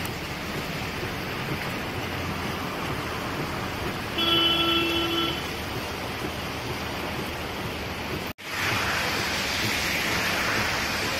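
Heavy rain falling on a wet street, a steady hiss, with cars passing over the wet road. A car horn sounds once for about a second, about four seconds in. After a brief drop-out about eight seconds in, the rain hiss is louder and brighter.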